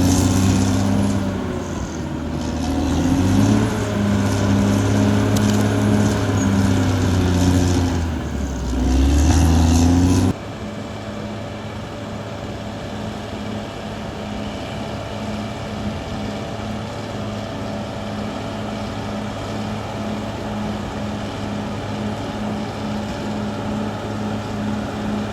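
Caterpillar D6R XL bulldozer's diesel engine working, its pitch rising and falling under changing load. About ten seconds in it cuts suddenly to a quieter, steady drone.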